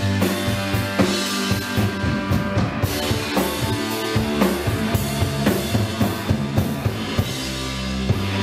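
Live rock band playing an instrumental passage: busy drum kit with bass drum and snare hits, over electric guitar and bass guitar. The drum hits thin out near the end, with one last hit.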